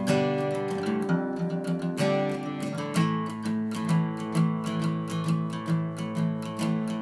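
Acoustic guitar music, strummed and picked in a steady rhythm over a held low note.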